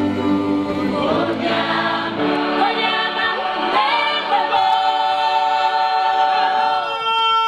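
A choir singing together, several voices holding long sustained notes with a few slides in pitch partway through.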